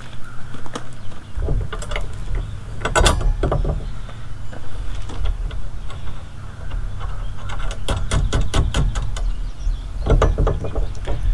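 Metal parts of a wheel hoe and hand tools clicking and clinking while handle brackets are bolted on, in irregular runs of quick clicks over a low steady rumble.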